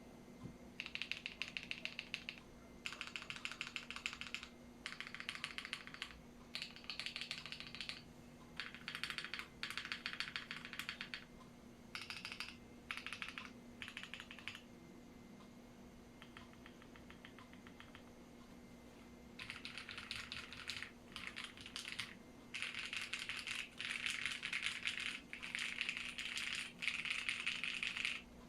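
Typing on a Bakeneko60 mechanical keyboard with KTT Strawberry linear switches, an FR4 plate and PBT keycaps, lightly dampened with polyfill. Fast keystrokes come in bursts of a second or two with short pauses between them, with a quieter, lighter stretch about halfway through and a longer, denser run near the end.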